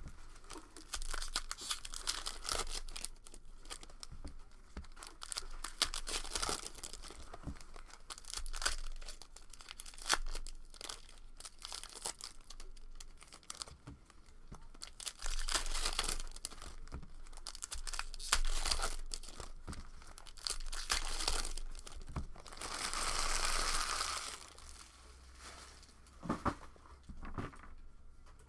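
Foil wrappers of 2019-20 Upper Deck Series 1 Hockey card packs being torn open and crinkled by hand, among rustling and flicking of cards. The rips and crackles come in a string of short bursts, with one longer tear about three-quarters of the way through.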